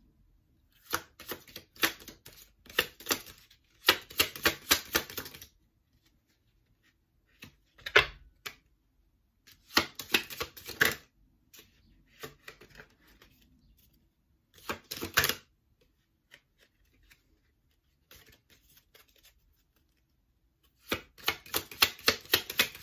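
A deck of tarot cards being shuffled by hand: several short bursts of rapid flicking and riffling clicks with pauses between them.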